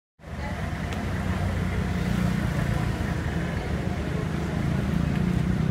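Street background noise with a steady low traffic rumble, cutting in suddenly just after the start.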